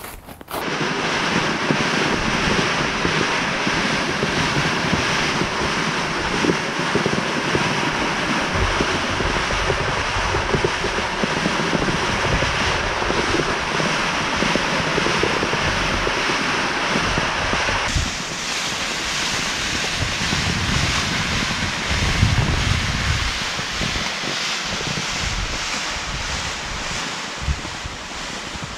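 Steady rushing wind, its tone changing abruptly about two-thirds of the way through.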